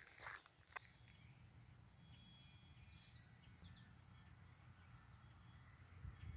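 Near silence: a faint low rumble, with a couple of last footsteps on gravel in the first second and a few faint bird chirps about three seconds in.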